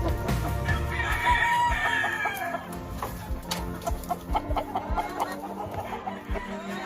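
A gamefowl rooster crowing once, a call of about a second and a half that drops in pitch at the end, followed by short clucks and calls from the birds.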